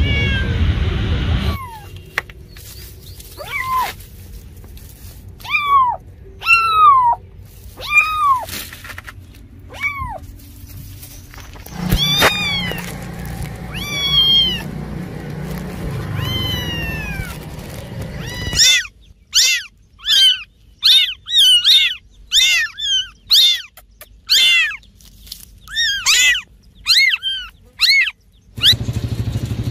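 Cats meowing: a series of separate drawn-out meows. About two-thirds of the way through this gives way to a quick run of short, high-pitched mews from very young kittens, roughly two a second.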